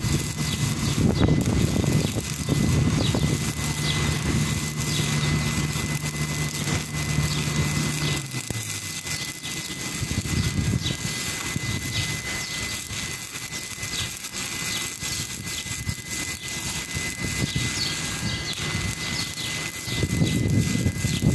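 Stick-welding arc crackling and hissing steadily as the electrode burns. Under it a low machine hum drops in pitch and fades out about eight seconds in.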